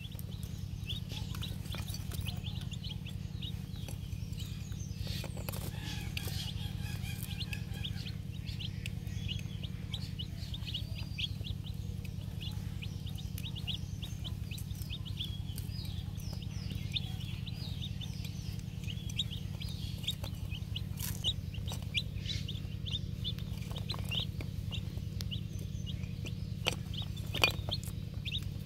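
A flock of young chicks peeping continuously, many short high falling peeps overlapping, over a steady low hum. A few sharp taps stand out, the loudest near the end.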